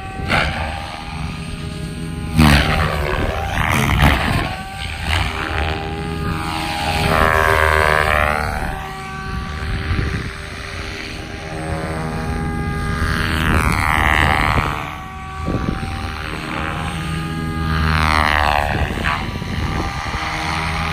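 SAB Goblin 700 electric RC helicopter flying 3D aerobatics: the rotor blades' whoosh and the brushless motor's whine swell and bend up and down in pitch as it swoops and flips, loudest in three passes.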